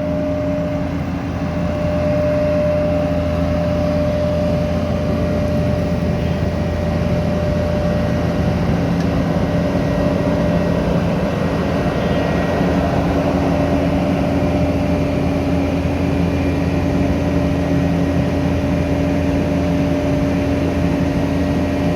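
Heavy road-paving machinery running steadily, a constant engine hum with a low rumble that does not change.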